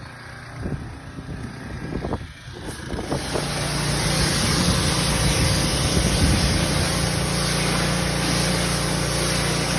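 Pressure washer starting to run about three seconds in, a steady engine hum under the loud hiss of the water spray.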